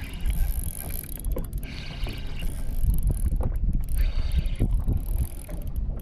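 Spinning reel being cranked while reeling in a hooked fish on a bent rod, its gears turning in uneven spells. Wind rumbles on the microphone and water laps at the boat's hull.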